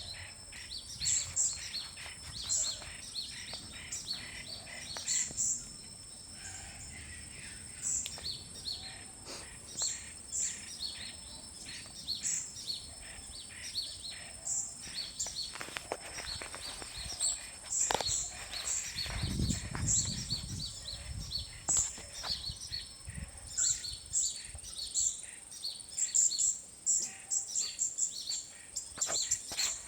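Many small birds chirping around a tree, short high calls repeating in quick succession, over a steady high insect drone.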